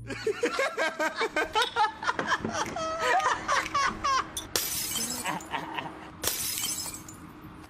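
Men laughing loudly, then glass smashing on pavement twice, each a sharp crash with a shower of shards, over a steady musical drone.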